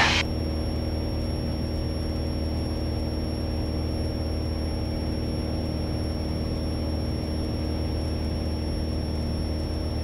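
Piper PA-28 Warrior's four-cylinder Lycoming O-320 engine and propeller droning steadily in level cruise, heard inside the cabin, with a faint constant high-pitched whine over it.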